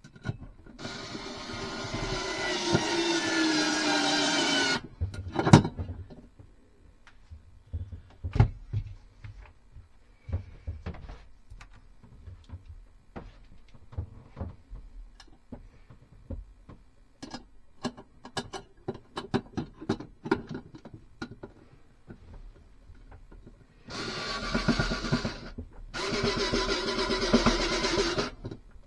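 Power drill driving screws in three runs, the motor's pitch dropping as the first screw tightens, with small clicks and knocks of handling between the runs.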